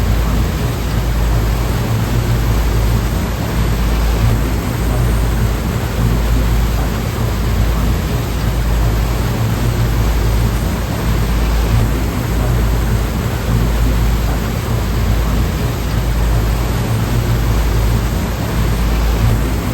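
Ocean surf rushing steadily, a continuous wash of noise with a heavy low rumble underneath and no distinct breaks between waves.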